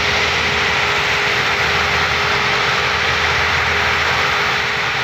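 Several diesel tractor engines running together under heavy load as they pull a stuck, loaded sugarcane trolley, a steady loud drone that begins to fade near the end.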